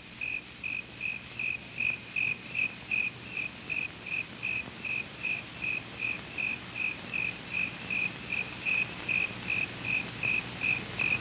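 A cricket chirping in a steady, even rhythm of about three chirps a second, each chirp at the same high pitch.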